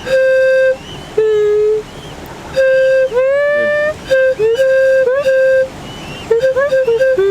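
Hindewhu: a one-note bamboo flute alternating with short sung or whooped voice notes, in the call-and-reply manner of the Central African pygmy technique. The flute's note stays flat and steady while the voice's answers sit lower and bend in pitch. The exchange goes slowly at first, then quickens into rapid back-and-forth from about four seconds in.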